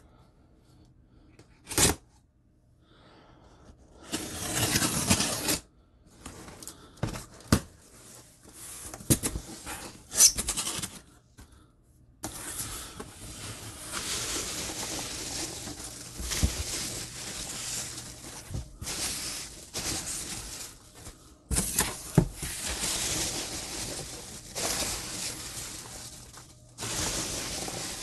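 A cardboard box being slit open and its taped flaps pulled apart, with short scrapes, clicks and a tearing burst. From about halfway in, hands stir through a box full of foam packing peanuts in a steady rustle.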